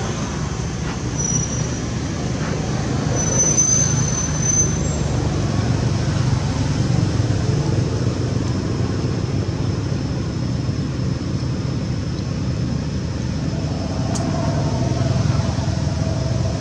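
Steady low rumble of outdoor background noise, with a thin high tone above it that grows briefly louder about one second and about four seconds in.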